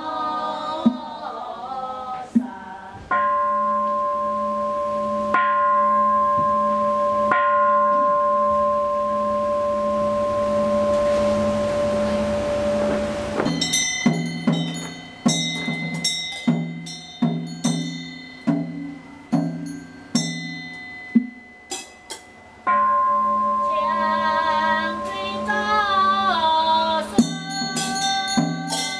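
Temple scripture-recitation instruments: a bowl bell struck three times and left ringing for several seconds, then a steady beat of about one strike a second on the wooden fish and bells. Women chant in unison at the start and again near the end.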